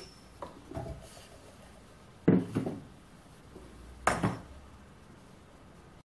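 Terracotta flower pot and its clay lid clinking and knocking as they are handled, with a few light clicks about half a second in and two sharper knocks a little under two seconds apart.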